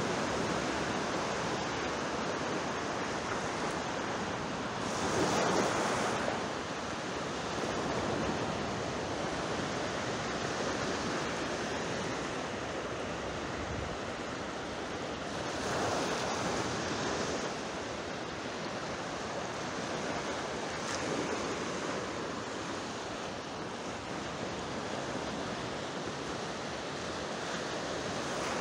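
Sea waves washing in: a steady rush of surf that swells as waves break about five seconds in, and again around sixteen and twenty-one seconds, with some wind on the microphone.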